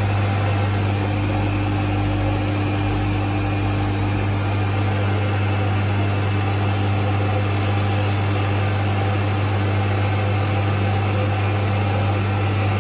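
Electric motor and belt-driven cutter spindle of a lathe wheel-cutting setup, running steadily with a strong low hum while cutting the teeth of a chronometer wheel.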